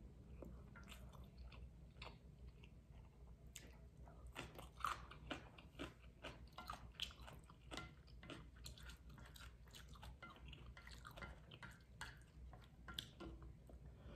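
Faint close-miked chewing: soft mouth sounds with many small, irregular wet clicks and smacks.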